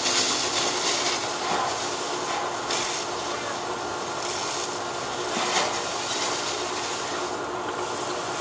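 Fire hoses spraying water onto smouldering debris: a steady rushing hiss that swells briefly now and then, over a low steady engine hum.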